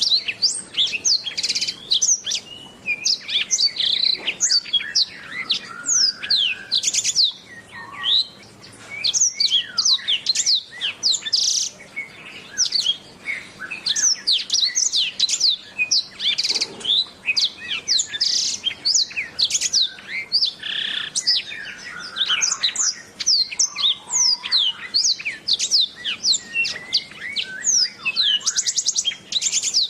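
Domestic canary singing a continuous, fast song of rapid sweeping chirps and trills, with a quick rolling trill near the end.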